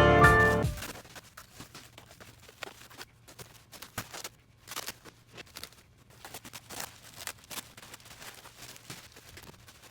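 Piano background music cuts off about a second in. It is followed by faint, irregular clicks and rustles over a low steady hum.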